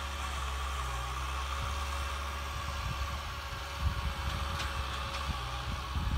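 Kubota tractor's diesel engine running steadily with an even hum while it pulls a disc plough through the soil.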